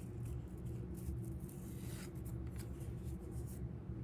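Stiff cardboard trading cards sliding against each other as a stack is thumbed through, a run of soft quick scraping flicks that stops shortly before the end, over a steady low hum.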